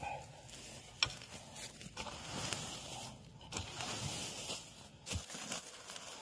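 Rustling and crackling of dry bamboo leaf litter and debris being disturbed, with scattered small clicks and a sharper click about a second in.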